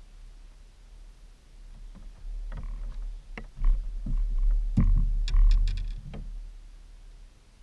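Irregular knocks, clicks and dull thumps on a bass boat's deck as a caught bass and a fishing rod are handled and set down, over a low rumble. They start about two seconds in, are loudest in the middle with a quick run of sharp clicks, and die away about six seconds in.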